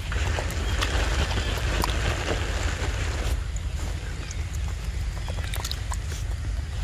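Wind buffeting the microphone, a steady low rumble, with scattered faint clicks.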